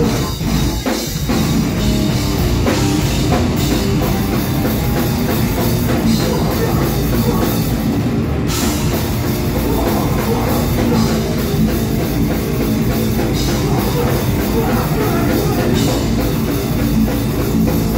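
Live rock band playing loudly and without a break: drum kit and amplified instruments.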